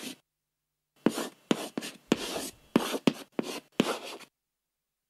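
Chalk writing on a blackboard: a quick run of about eight scratchy strokes and taps that starts about a second in and stops abruptly near the end.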